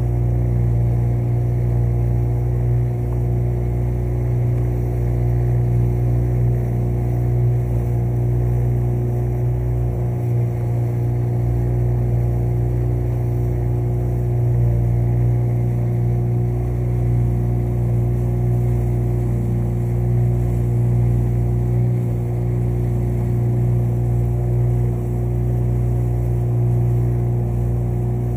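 Small motorboat's engine running steadily at cruising speed, a constant low hum that does not change.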